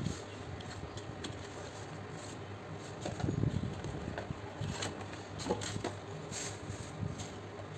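Paperboard product boxes being handled and lifted out of their outer carton: scattered light taps, scrapes and rubbing of cardboard, with a louder rub about three seconds in, over a steady low hum.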